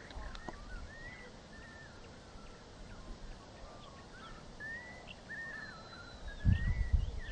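Wild birds calling in the bush: many short chirps and slurred whistles, several voices overlapping. Near the end a low rumbling noise rises under the calls.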